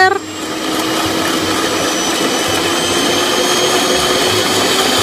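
Electric hand mixer running steadily, its twin beaters whipping batter in a plastic bowl.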